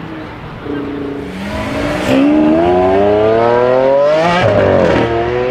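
Maserati GranTurismo Trofeo's 3.0-litre twin-turbo V6 accelerating hard, its pitch climbing steadily through one gear. A little after four seconds in it drops sharply at an upshift and starts rising again.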